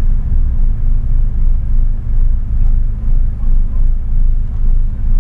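Renault Megane 225's turbocharged four-cylinder engine and road noise heard from inside the cabin: a steady low drone that swells and dips about once a second.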